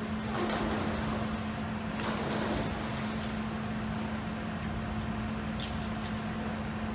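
Steady low hum of an indoor pool hall, with splashing from swimmers diving in about half a second and two seconds in, and a short sharp click about five seconds in.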